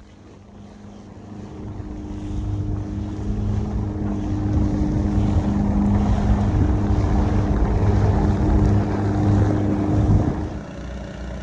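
Push boat's engine running steadily under load as it shoves a barge, with water wash from the wake and wind on the microphone. The engine hum grows louder over the first several seconds, then drops off suddenly near the end.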